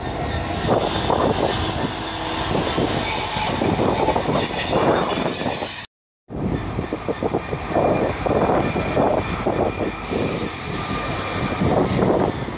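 GB Railfreight Class 66 diesel-electric locomotive running slowly at close range, its EMD two-stroke diesel engine working over the rumble of the wheels on the rails. A high wheel squeal rises in a few seconds in.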